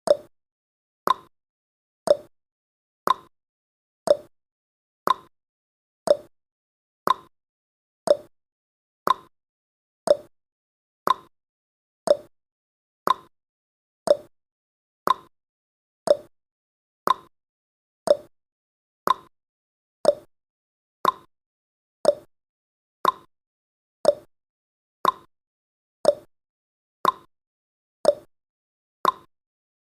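Countdown timer's clock-tick sound effect, a sharp tick once a second, each tick alternating slightly in pitch like a tick-tock.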